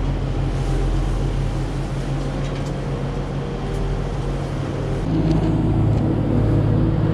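An engine runs steadily at a low speed, then its pitch and level step up about five seconds in as it is throttled up.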